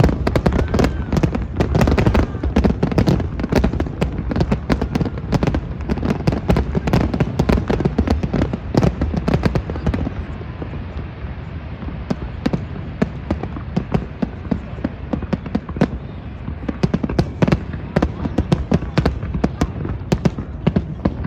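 Fireworks display going off: rapid cracks and bangs over a continuous low rumble, thinning out for a few seconds in the middle before the cracking builds up thick again.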